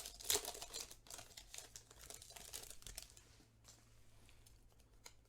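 Foil wrapper of a Pokémon trading-card booster pack crinkling and tearing as it is opened. It is busiest in the first three seconds, then thins to faint rustling.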